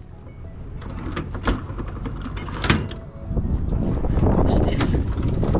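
Motorhome corner steady being wound down with a hand crank. Two sharp clunks come from the winding mechanism in the first few seconds, then a louder, steady grinding rattle as the leg is wound down.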